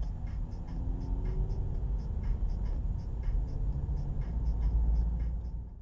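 Car interior rumble of engine and road as a car picks up speed from a crawl, with a light ticking a few times a second over it. The sound cuts off abruptly at the end.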